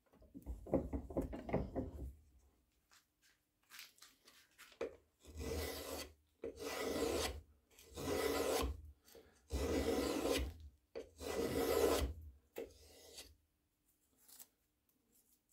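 A freshly sharpened carving gouge paring a strip of wood, testing its edge. There is a rough scrape in the first two seconds, then about five evenly paced shaving cuts of about a second each, with a couple of fainter ones after.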